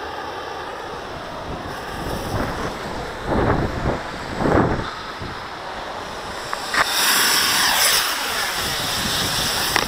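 Wind buffeting the microphone while walking, then about seven seconds in a sudden, sustained hissing rush as a 60-40 potassium nitrate and sugar mix ignites and burns, spraying a jet of white smoke.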